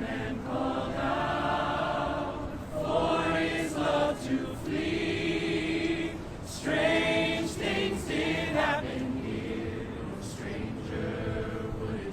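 Voices singing in phrases of long held notes that slide in pitch, sounding like a choir, with short breaks between phrases.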